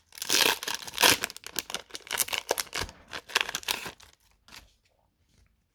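Foil wrapper of a Pokémon trading-card booster pack being crinkled and torn open by hand: a dense run of crackling rustles for about four seconds, then only a few faint rustles near the end.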